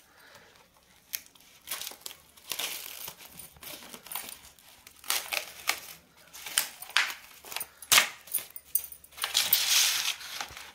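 Plastic film on a mushroom punnet crinkling and tearing as it is slit with a knife and pulled off. It comes in about four bursts of rustling, with a few sharp clicks of the plastic trays being handled in between.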